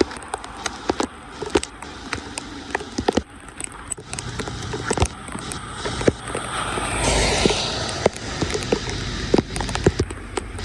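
Rain on a flooded street: many sharp, irregular drop ticks over a steady wet hiss, with a swell of rushing noise that builds and fades about six to eight seconds in.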